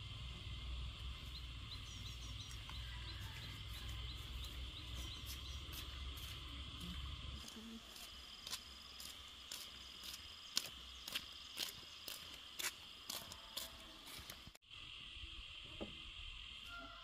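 Steady chirring of insects such as crickets, with a low rumble that stops about seven seconds in. From about eight seconds, scattered sharp clicks and taps come over the chirring, and the sound cuts out for a moment near the end.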